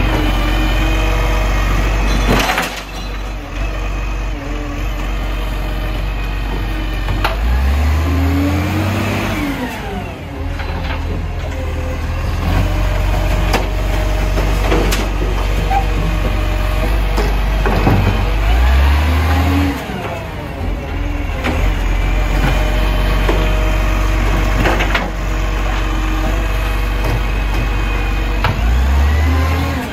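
Recycling garbage truck's diesel engine running, revving up and back down about every ten seconds as it works through its bin collection. Sharp metallic knocks and bangs come between the revs, the loudest about two and a half seconds in.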